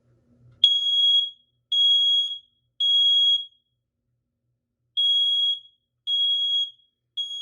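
First Alert SA304 battery smoke alarm sounding its test. It gives two groups of three loud, high-pitched beeps with a pause between the groups, the standard temporal-three evacuation pattern.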